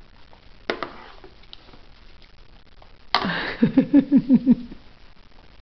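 A short breathy puff about a second in, then, past halfway, a loud burst of laughter: a sharp breath followed by about six quick 'ha' pulses.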